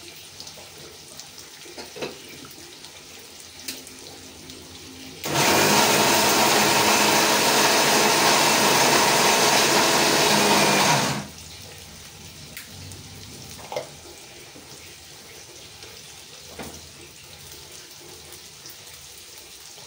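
Electric mixer grinder (mixie) switched on for about six seconds, grinding dry roasted spices, coconut and dals into vangibath masala powder; it starts and stops abruptly. Before and after it, eggplant pieces sizzle quietly in oil in a pan.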